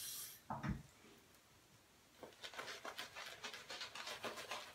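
Synthetic shaving brush working shaving soap lather on the face: after a brief hiss at the start and a soft knock, a run of quick soft swishing strokes, several a second, begins about two seconds in.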